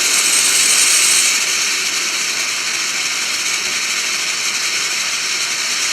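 Firework fountain spraying with a loud, steady hiss, with a high whistle over the first second or so.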